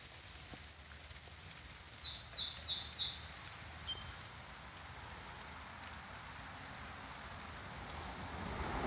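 A small songbird singing one phrase about two seconds in: four separate high notes, then a fast trill and a short high note. Underneath is a steady hiss of light rain, which grows louder near the end.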